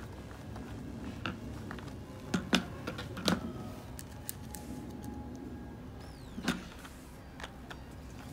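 Hard plastic clicks and knocks as a plastic tweeter trim cover and a hand screwdriver are handled, with a few sharp clacks, the loudest two to three and a half seconds in. Near the end, a small screw is turned into the tweeter's mounting bracket.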